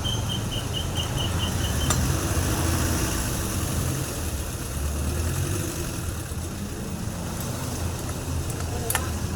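Two-stroke chainsaw engine running steadily at idle, with slight rises and dips in its speed.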